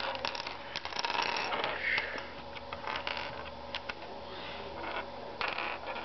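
Plastic pieces of a 5x5 Rubik's cube clicking and rattling as they are handled and slid into place on the partly rebuilt cube, with a dense run of clicks at the start and another short cluster near the end.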